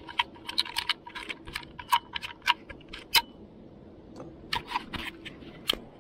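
A run of sharp, irregular clicks and taps, closely grouped over the first three seconds, then a few more a second before the end.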